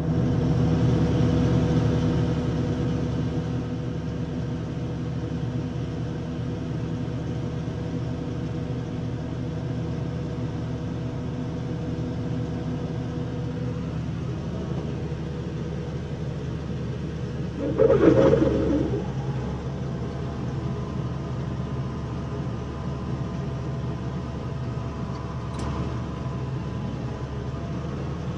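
A 1974 John Deere 6600 combine running, heard from inside the cab as a steady engine and machinery drone. About 18 seconds in, a brief louder noise swells and fades over about a second.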